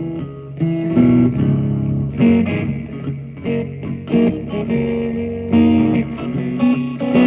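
Guitar being played: plucked notes and strummed chords in a loose, unhurried line, each ringing out before the next.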